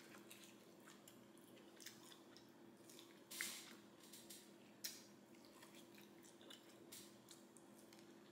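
Near silence with faint mouth sounds of biting and chewing sticky glazed pork ribs: a few soft wet clicks and smacks, the clearest about three and a half seconds in, over a low steady hum.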